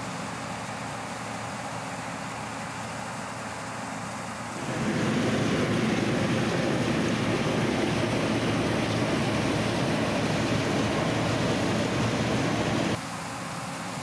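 1991 New Holland TR86 combine harvesting standing corn, heard from inside the cab: a dense, steady running noise from the engine, threshing gear and stalks feeding into the corn head. It starts abruptly about four and a half seconds in and cuts off suddenly about a second before the end. Before and after it there is a quieter steady mechanical hum.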